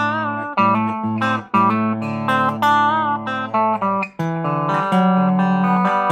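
Electric guitar, a Gibson Flying-V replica with Ibanez QM humbuckers, played on its bridge pickup. It plays a riff of picked notes with string bends, then holds a ringing chord from about four seconds in.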